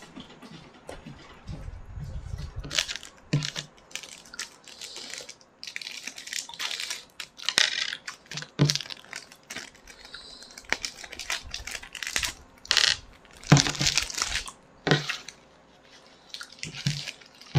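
Crinkling, crackling and tearing of medicine packaging as pills are pressed and torn out onto a table, in many short irregular bursts with a few light knocks.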